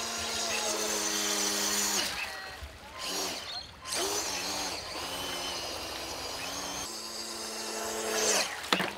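WLtoys WL912 RC speedboat's electric motor whining at speed in several throttle bursts, each one steady and then dropping in pitch as the throttle is let off.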